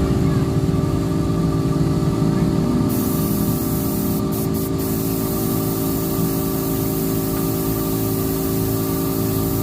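Compressed air hissing from a paint-shop air gun over a steady machine hum with several fixed tones; the hiss grows much stronger about three seconds in.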